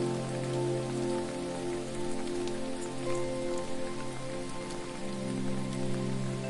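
Steady hiss of falling water, with soft sustained music chords underneath that change about five seconds in.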